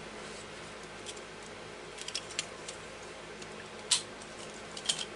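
A few light clicks and taps of a blue plastic hard-drive caddy being handled and snapped onto a hard drive, the loudest about four seconds in, over faint steady background hum.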